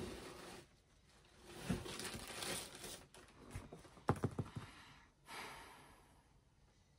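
Faint rustling and crinkling of packaging being handled, with a few light knocks a little past the middle.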